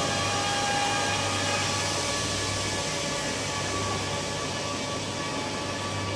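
Several electric car-polishing machines running at once on car paint: a steady whirring with several high, even whining tones and a low hum underneath.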